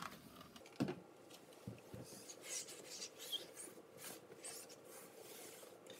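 Cloth wiping glass cleaner off oven door glass: faint rubbing strokes, a few a second, with a soft knock just under a second in.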